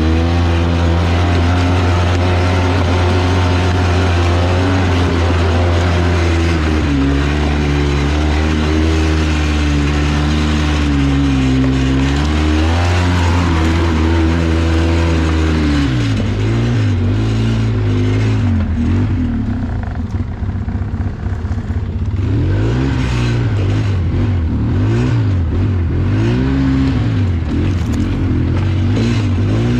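ATV engine running under way, fairly steady with slow changes in pitch at first, then revving up and down over and over from about halfway through.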